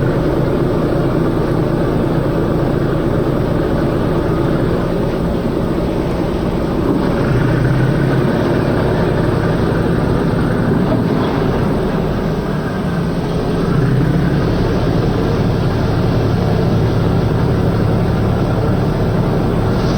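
A heavy vehicle engine running steadily, a cartoon sound effect for a farm or construction machine. Its note lifts briefly a few times, about a third of the way in and again past halfway.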